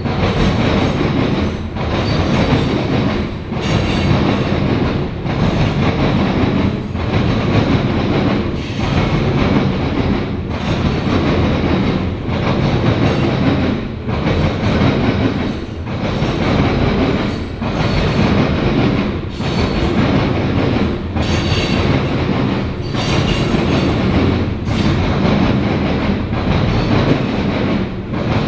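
Loaded grain train of covered hopper cars rolling past, wheels clacking over rail joints in a steady repeating rhythm, with a faint high wheel squeal.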